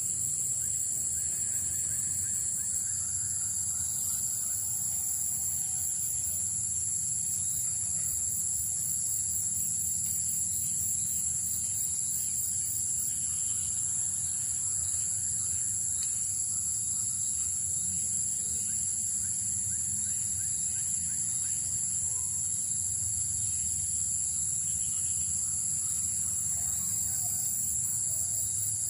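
Steady insect chorus: a continuous high-pitched trill. A second, faster-pulsing and even higher trill drops out and comes back several times.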